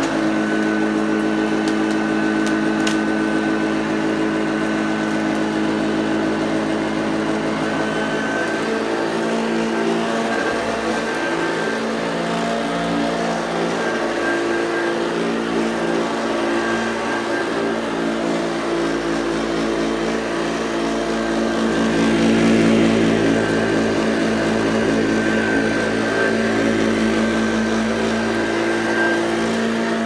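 Hoover Junior U1104 upright vacuum cleaner running steadily while pushed over carpet, a constant motor hum with a whine on top. It swells a little louder about two-thirds of the way through.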